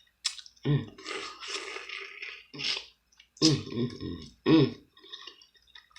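Mouth sounds of someone eating crab meat: wet chewing and smacking, broken by a few short hummed "mmm" sounds of enjoyment.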